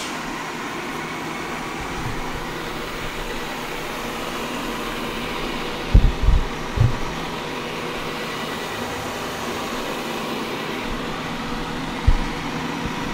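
Xiaomi Mi Robot Vacuum Mop P running with a steady whir as it drives itself back to its charging dock. A few short low thumps come about six seconds in and once more near the end.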